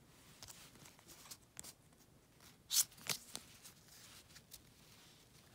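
Pokémon trading cards from a freshly opened booster pack being handled: faint sliding and rustling of card stock, with one louder brief scrape a little under three seconds in.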